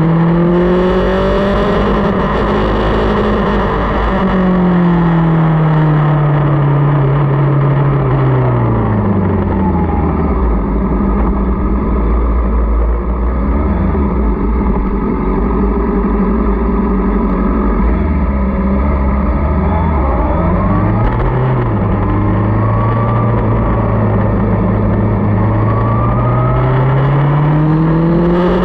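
Motorcycle engine heard from on board while riding, over steady road and wind noise. The engine note drops over several seconds as the bike slows, runs low and steady for a long stretch, then climbs again near the end as it accelerates.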